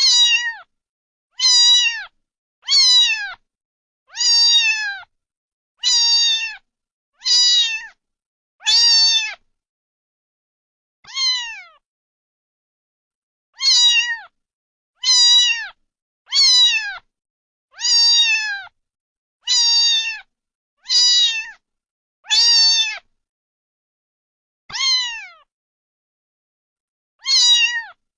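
A cat meowing over and over: about seventeen short, high meows, mostly one every second and a half, each falling in pitch at its end, with a few longer pauses between runs.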